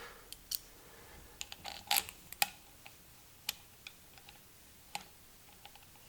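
Scattered light clicks and taps of hand tools and bolts being handled, a dozen or so at irregular intervals, the loudest about two seconds in.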